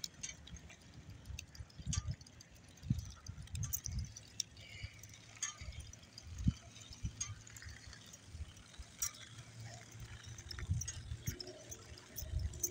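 Irregular low rumbling from wind and movement buffeting a phone microphone on a moving bicycle, with scattered faint ticks.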